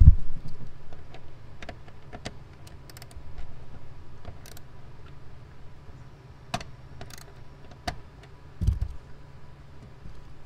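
Scattered light clicks and ticks of a hand Torx driver working a T25 fastener out of car interior trim. Two dull knocks come from handling close to the mic, one at the very start and one near the end.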